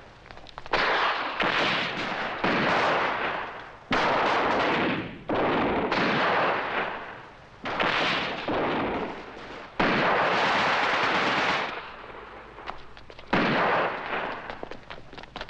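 Gunfire and explosions: about ten loud bangs one to two seconds apart, each cutting in sharply and dying away over a second or so.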